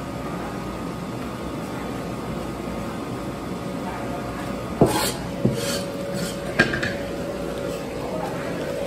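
Clinks and knocks of a butcher's cleaver and metal utensils: three sharp strikes about five, five and a half and six and a half seconds in, over a steady background hum.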